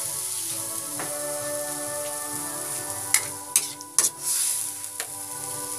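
Sautéed bitter gourd sizzling in a metal wok with a little water. About three seconds in, a few sharp clacks as the spatula scrapes and knocks against the wok while stirring, over steady background music.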